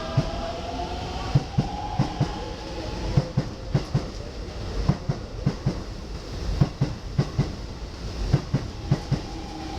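Keikyu electric train moving slowly through the station, its wheels knocking over rail joints and points in an uneven clatter over a steady rumble. A faint whine fades away over the first few seconds.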